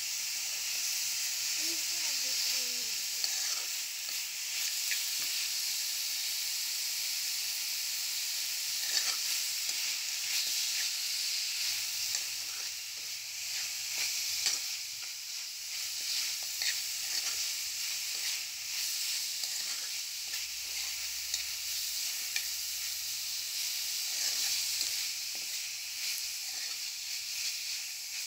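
Chopped banana blossom and pork sizzling steadily in a pan as a spatula stirs them, with scattered scrapes and taps of the spatula against the pan.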